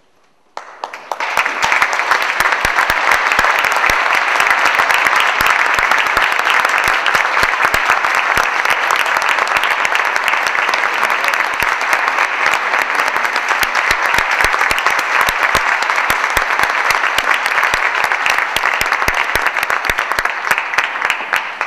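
Concert audience applauding, swelling up about a second in, holding steady, and dying away at the very end.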